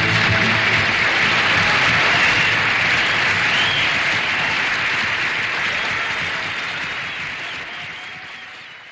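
Studio audience applauding just after the last notes of a rock song, with a brief whistle partway through. The applause fades out steadily over the second half.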